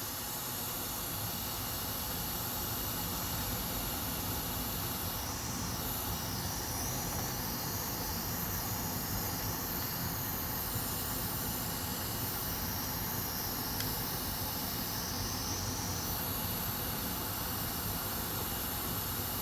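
Hot air rework station blowing a steady hiss of air, set to 500 °C to heat a burned MOSFET off a laptop motherboard.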